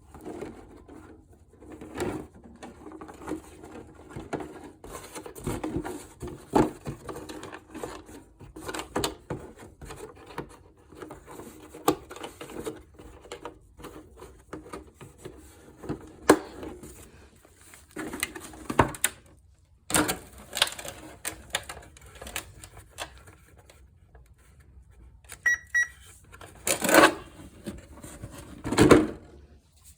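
Irregular clicking and clattering of small hard parts and tools being handled during work on an RC car, with a few louder knocks near the end.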